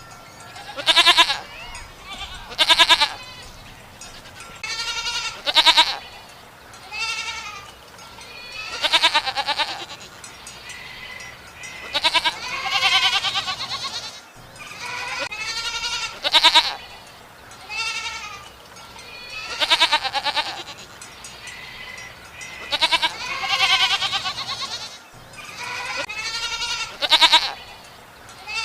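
Goats bleating over and over, more than a dozen wavering calls one after another, some short and some drawn out.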